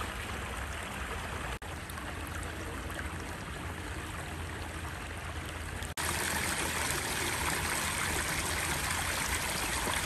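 Shallow water running steadily over stone steps at the shore, a continuous trickling stream; it is louder and hissier from about six seconds in.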